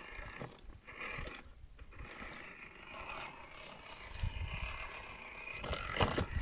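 A 1/10-scale RC crawler (MST CFX, Toyota FJ body) whines in short bursts of throttle as it climbs over wooden planks and logs. Its tyres scrape on the wood, and there are a few sharp knocks near the end.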